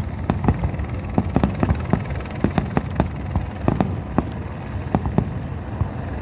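Fireworks in a dense barrage, many sharp bangs and crackles a second over a continuous low rumble.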